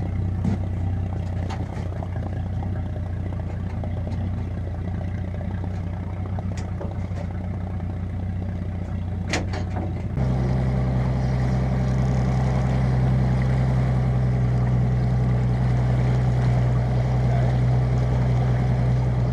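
Boat engine running at a low steady idle, then about ten seconds in, just after a short click, stepping up to a higher, louder steady pitch as it is throttled up to move the boat slowly ahead.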